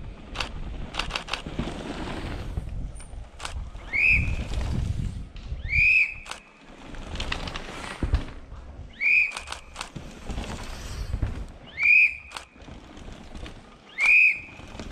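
Five short, loud whistle blasts, each swooping up sharply and then holding, a couple of seconds apart. Between them are scattered sharp clicks and a low rumble.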